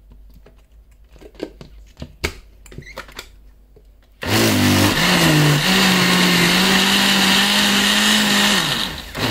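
A few light knocks of handling, then about four seconds in an electric kitchen blender starts, its pitch rising as it spins up, and runs steadily while blending yogurt into green chutney with a little water. Near the end it winds down and is switched on again for a short pulse.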